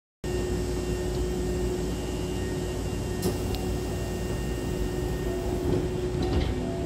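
Hankyu commuter train's double sliding doors closing, meeting with a thud near the end, over a steady hum. A sharp click comes about three seconds in.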